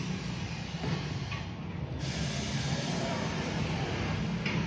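Steady mechanical hum with a hiss from a tyre-changing machine as a motorcycle wheel and tyre are worked at it.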